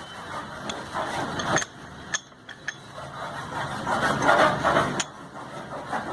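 Sharp metallic clicks and clinks of tools and engine parts being handled, over a steady background of noise.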